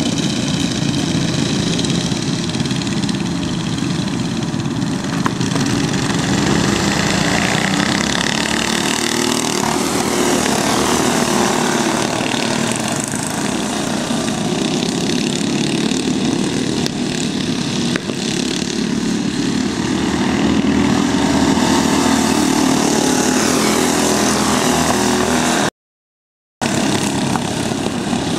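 Small go-kart engines running at race pace, several karts at once, their pitch rising and falling as they brake and accelerate around the track. The sound cuts out completely for under a second near the end.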